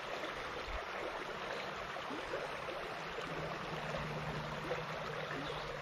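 Small stream running over a shallow gravel riffle: a steady, even rush of water.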